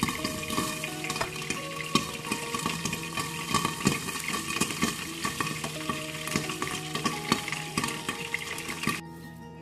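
Spoon clinking and scraping as batter is stirred in a bowl, over the steady sizzle of fritters frying in hot oil. The sizzle and clinking cut off suddenly about nine seconds in.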